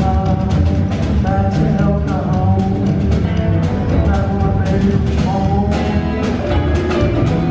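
Live band playing a rock-and-roll passage without vocals: a drum kit keeps a steady beat under a bending lead melody line.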